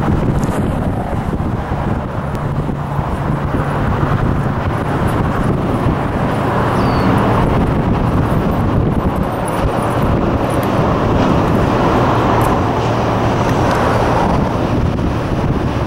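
Approaching diesel freight locomotive, heard as a steady low engine hum under a constant wash of outdoor noise.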